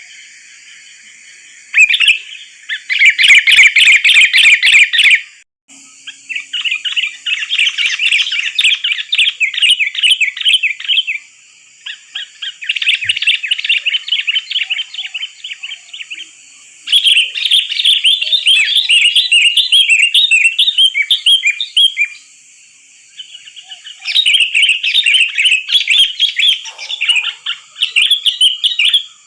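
Sooty-headed bulbul (kutilang) singing energetically in loud bouts of rapid, bubbly chirps. There are five bursts of several seconds each, separated by short pauses.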